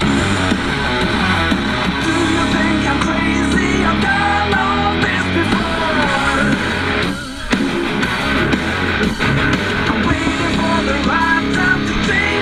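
Rock music with electric guitar and singing, playing steadily, with a brief drop in level about seven seconds in.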